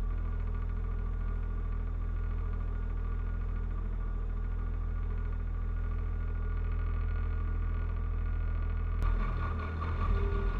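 John Deere 1025R compact tractor's three-cylinder diesel engine idling steadily. About nine seconds in there is a sharp click, after which the engine note changes and a steady whine joins it.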